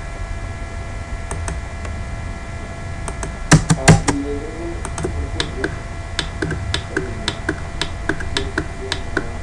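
Computer keyboard keys being typed: a few louder key presses about three and a half seconds in, then a run of quick, light taps, over a steady electrical hum.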